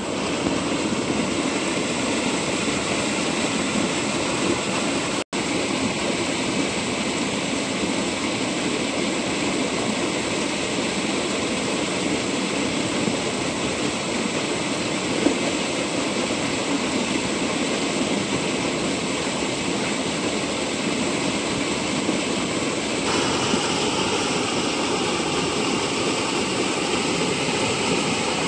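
Water gushing out of a concrete outlet pipe into an irrigation channel, a steady rushing and churning. It cuts out for a moment about five seconds in and turns a little hissier near the end.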